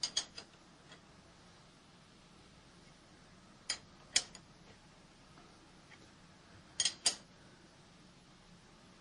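Sharp metallic clinks in three small clusters of two or three: a wrench working on the milling machine vise's half-inch hold-down bolts as they are tightened down.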